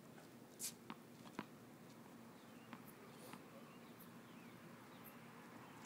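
Near silence on a hard tennis court, broken by a few faint taps and scuffs and some faint high chirps.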